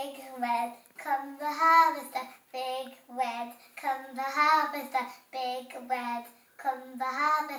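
A young girl singing a tune while she dances, in about six short phrases with brief gaps between them.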